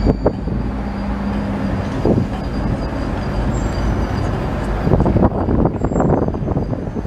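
Siemens ULF low-floor tram passing close by, a steady rumble with scattered knocks and clatter that crowd together about five to six seconds in as the cars go past.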